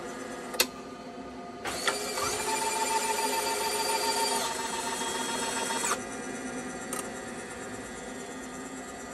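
TBK-288 phone screen separator: a sharp click, then its motor runs for about four seconds with a whirring, printer-like whine that shifts pitch partway and stops abruptly, followed by a softer click.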